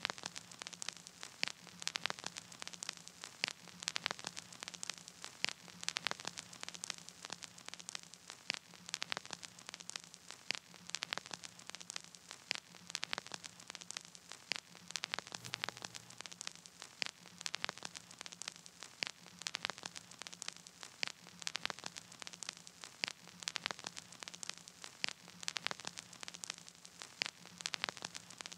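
Crackling static: irregular clicks and pops over a faint hiss and a low hum, with no music playing.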